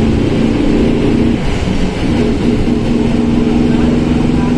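Volkswagen Volksbus 17.230 OD bus diesel engine running under way. The engine note breaks off briefly about a second and a half in, then settles at a steady pitch.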